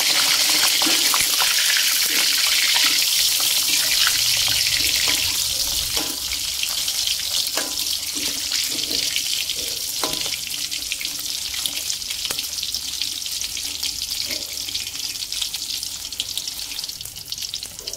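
Hot oil sizzling in an aluminium wok as whole smoked fish fry, with a few scrapes and taps of a metal spatula against the pan as the fish are turned. The sizzle eases off a little after about six seconds.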